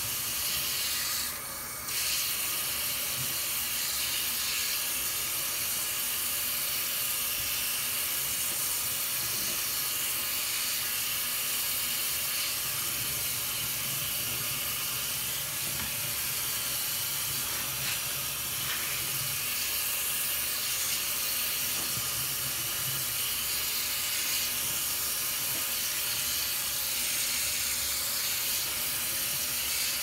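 Steady watery hiss of a sink full of soap suds as a sponge is squeezed and swished through the water, with a short dip about a second and a half in.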